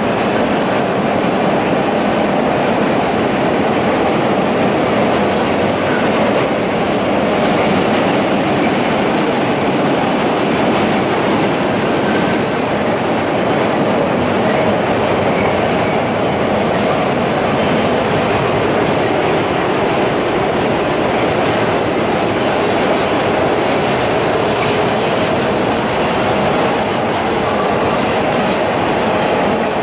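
Autorack freight cars rolling steadily across a steel truss railroad bridge, with the continuous noise of their wheels on the rails.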